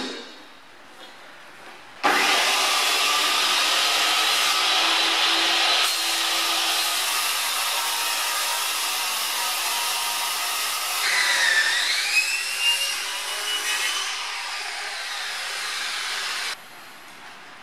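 Bosch circular saw with a Diablo blade ripping a rectangular aluminium tube lengthwise. The saw comes on suddenly about two seconds in and runs loudly through the cut, its whine dipping and recovering about eleven seconds in, then stops about a second before the end.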